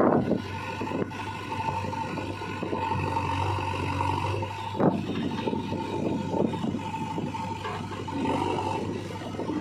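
Diesel engine of heavy earthmoving machinery running steadily, with scraping and rattling from the digging work and sharp knocks right at the start and about five seconds in.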